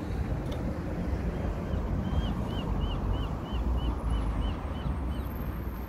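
Low rumble of wind on the microphone, with a bird calling a quick run of about a dozen short high notes, around three a second, through the middle.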